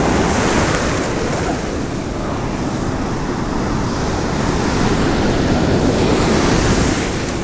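Ocean surf breaking and washing up a sandy beach: a steady rush of water, with wind buffeting the microphone.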